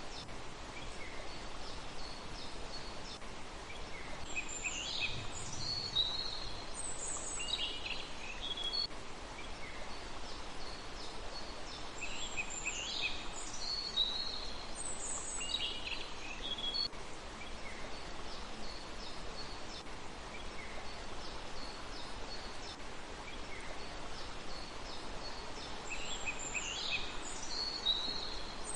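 Songbirds calling in short, high, quickly changing phrases in clusters every several seconds, with fainter chirps between, over a steady background hiss.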